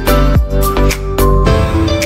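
Background music with a steady beat under held instrumental notes; the beat drops out near the end.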